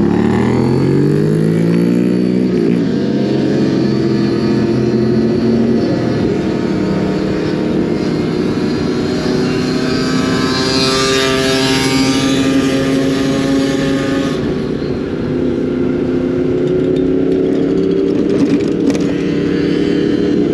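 Motorcycle engine accelerating, its pitch rising over the first few seconds, then running steadily at speed.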